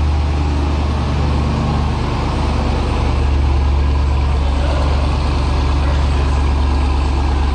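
Ram TRX pickup's supercharged 6.2-litre Hemi V8 idling after a remote start, a steady, deep exhaust rumble.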